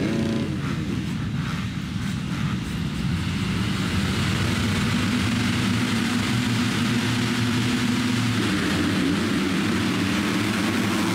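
A full gate of motocross bikes revving together at the start line, then accelerating away as the gate drops about eight seconds in.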